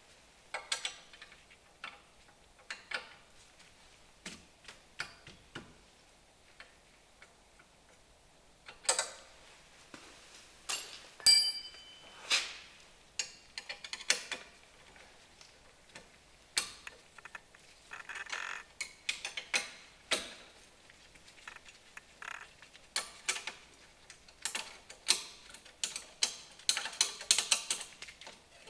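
Hand tools and metal brake parts clicking and clinking during work on the rear drum brake's wheel cylinder, irregular and with denser clicking near the end. A short metallic ring sounds about eleven seconds in.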